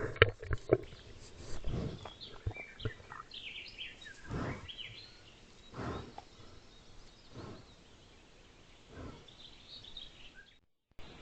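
Small birds chirping, with a string of short, soft puffs of noise every second or so and a few sharp clicks in the first second. The sound drops out briefly near the end.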